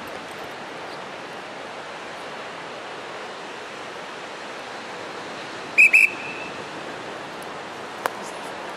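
Steady outdoor wind and ocean surf noise. About six seconds in, two short, sharp, high whistle-like notes stand out loudly, and a single click follows near the end.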